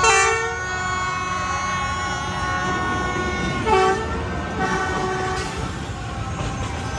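Horn of a D19E diesel-electric locomotive sounding over the low rumble of the passing train. A long chord-like blast comes at the start, a short louder blast just before four seconds in, and a weaker one soon after.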